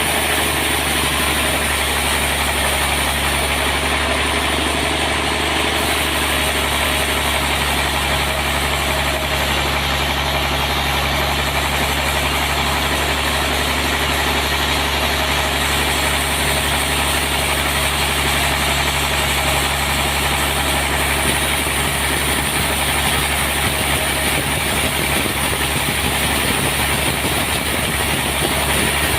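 Log sawmill's engine running steadily under a constant hiss, with no change in speed.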